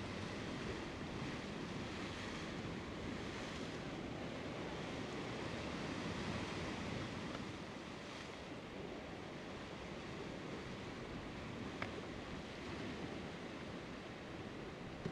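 Sea surf breaking and washing over a rocky shore, a steady rushing sound, with a faint click late on.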